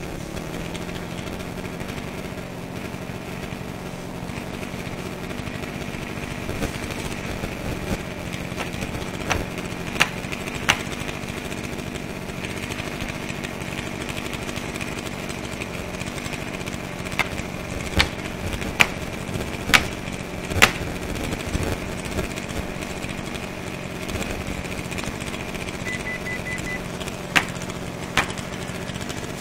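Chainsaw running steadily. Sharp knocks sound over it: a pair around a third of the way in, four close together around the middle and two near the end.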